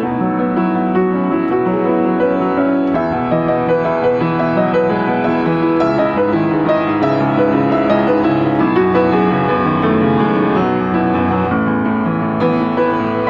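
Yamaha upright piano playing an improvised melody over sustained chords, the notes ringing into one another.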